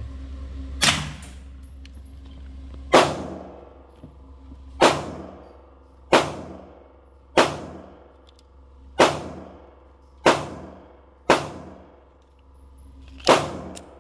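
Suppressed firearm firing nine single shots of 124-grain ammunition, spaced one to two seconds apart, each a sharp crack with a short ringing tail. With the suppressor on, the action is going out of battery and throwing a lot of gas blowback back at the shooter.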